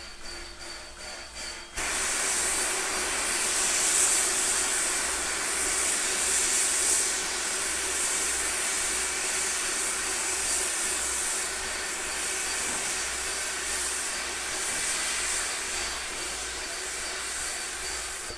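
A train venting pressure with a loud, steady hiss that starts suddenly about two seconds in and eases slightly near the end.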